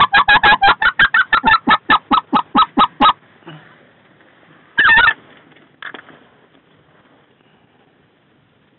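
Goose call blown to imitate specklebelly (greater white-fronted) geese: a fast run of about twenty sharp yelps over three seconds, then a louder drawn-out double note about five seconds in and one short note a second later.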